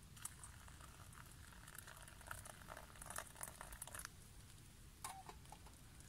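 Faint clinks, taps and rustling as an aluminium pot of water is handled with leather gloves and set down on a small gas camp stove, with a sharper click about five seconds in.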